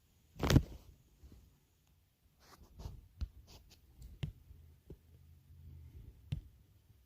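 Computer mouse clicks and handling noises on a desk, with a louder bump about half a second in and a few sharp clicks after it.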